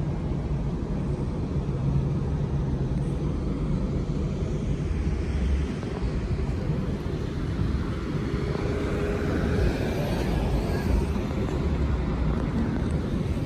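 City transit bus idling at the curb with a steady low engine rumble. About eight seconds in, a passing car's noise swells and then fades.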